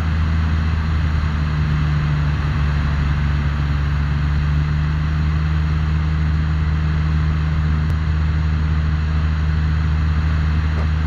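Cessna O-1 Bird Dog's Continental six-cylinder, 470-cubic-inch piston engine and propeller running steadily in cruise flight: a constant low drone.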